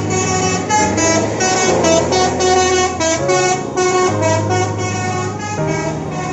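Music with a melody of multi-tone 'telolet' truck horn notes over a bass line, the pitched notes changing in a quick rhythmic pattern.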